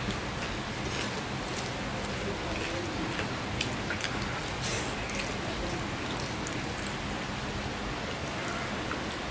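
Steady rain falling in the background, with the occasional soft click and smack of someone eating rice and curry with his fingers and chewing.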